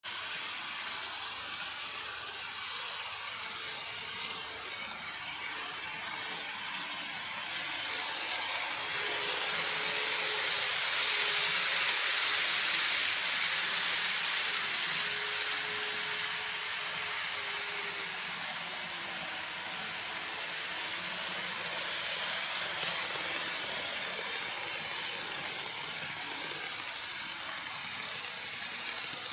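N-gauge model electric train running on viaduct track: a steady high-pitched hiss of wheels and motor that swells louder, eases off in the middle and swells again as the train comes nearer, with a faint low hum mid-way.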